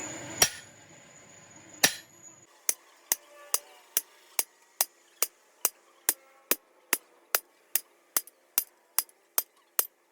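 Hammer blows on metal: two separate strikes, then a steady run of blows at about two to three a second, each with a short metallic ring. A steady background hum stops about two and a half seconds in.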